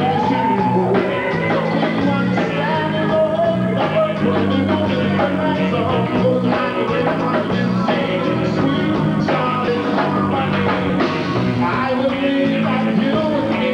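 Live band music with a male singer singing into a microphone over a steady bass line.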